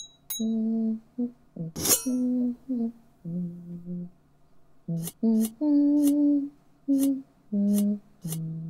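A voice humming a tune in separate held notes that step up and down in pitch. There is one sharp click about two seconds in, and short, sharp clicks at the starts of the notes in the second half.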